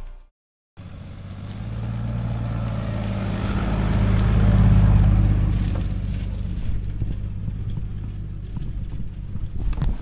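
Four-wheel-drive vehicle engine running on a sandy track, cutting in just under a second in, its note swelling to a peak about halfway through and then easing, with scattered knocks and rattles.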